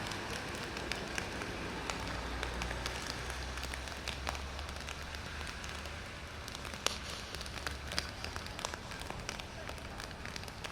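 Rain falling steadily, with sharp ticks of individual drops hitting close by, over a low steady rumble that fades late on.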